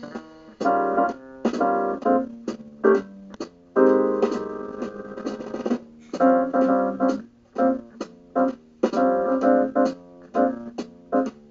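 Blues in B-flat: piano accompaniment in short, rhythmic chord stabs, with a French (Buffet-system) bassoon playing along over it.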